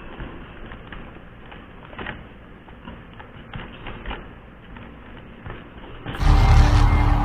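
Faint rustling and small clicks of bare hands picking at rice on a paper food wrapping. About six seconds in, loud guitar music cuts in suddenly.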